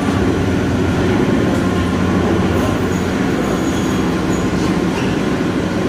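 Steady mechanical rumble and hum of a gondola lift cabin riding its haul cable, with a faint high squeal from the rope and wheels.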